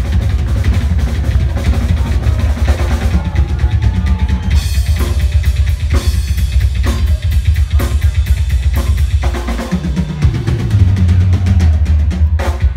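Live drum solo on a rock drum kit: rapid, dense bass drum strokes under snare and tom fills. Cymbals come in about four and a half seconds in.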